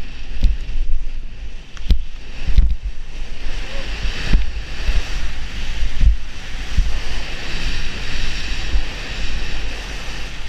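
Skis hissing through deep powder snow on a fast descent, with wind rushing over the microphone and several low thumps as the skis ride over bumps.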